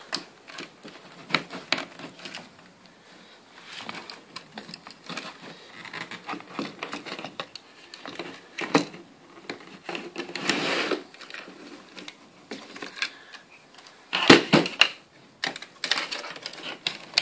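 Handling noise from a solar electric fence energiser being taken apart: scattered small clicks, taps and rustles of plastic housing, wire connectors and circuit board, with a louder knock and rattle about fourteen seconds in.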